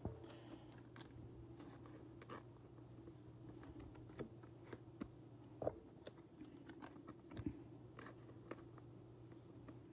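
Faint scattered clicks and rustles of trading cards being handled and shuffled on a tabletop, over a low steady hum.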